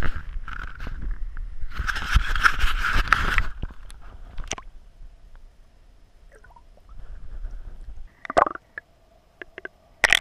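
Water splashing and sloshing against a camera's waterproof housing as a trout is handled and let go at the surface, loudest from about two to three and a half seconds in. It then drops to faint underwater noise with a few sharp clicks near the end.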